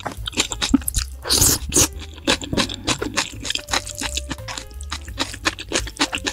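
Close-miked eating of spicy instant ramen noodles: wet, crunchy chewing and mouth sounds with rapid clicks, and a louder noisy burst about a second in. Background music with a steady bass plays underneath.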